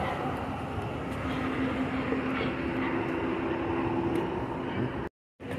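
Steady rumble of city street traffic with a low engine hum, which cuts out for a moment near the end.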